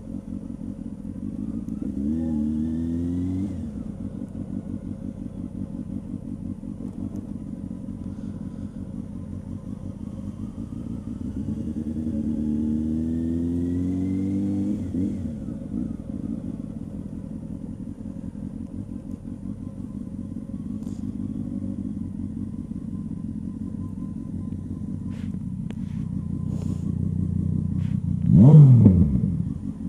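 A 2000 Honda CB600F Hornet's inline-four engine running at low speed, rising in pitch twice as it pulls away. Near the end there is a brief loud rev whose pitch drops quickly away.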